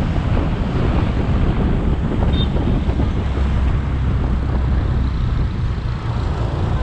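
Wind buffeting the microphone of a moving motorcycle, over a steady low engine and road rumble.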